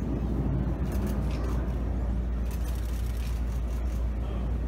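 Steady low rumble of distant jet aircraft, the Red Arrows' BAE Hawk T1 trainers flying over the harbour.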